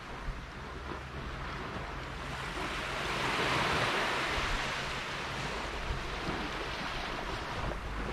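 Ocean surf: a wash of waves that swells about three seconds in and then eases back, with a faint low steady hum beneath.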